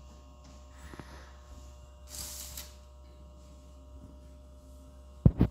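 Quiet room tone with a low steady hum, a brief hiss about two seconds in, and a loud thump near the end, after which the sound cuts off.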